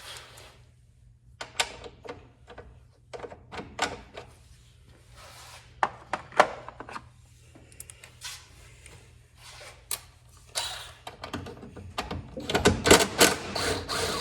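Irregular clicks and knocks of hand tools and loose metal parts being handled while a Lawn-Boy push mower is taken apart, gathering into a quick run of clattering near the end.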